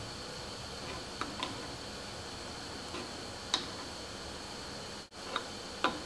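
An open-end wrench clicking against a brass 1/4-inch barbed fitting as it is turned and repositioned, threading the fitting's tapered pipe thread into a hole drilled in PVC drain pipe. About six light, sharp clicks come at uneven intervals over a steady faint hiss.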